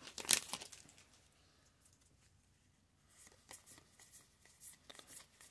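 Flesh and Blood trading cards being handled and flicked one past another in the hands. A few soft clicks and rustles come at first, then it is quiet, then faint card flicks come again in the last couple of seconds.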